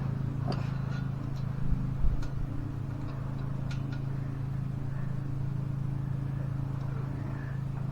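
A steady low mechanical hum runs throughout, with light metallic clicks and knocks from hand work on the shifter linkage as a clip is pressed on. The loudest knock comes about two seconds in.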